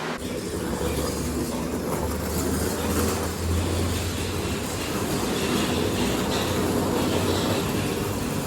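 Steady low rumble of a moving vehicle heard from inside it, with road or track noise.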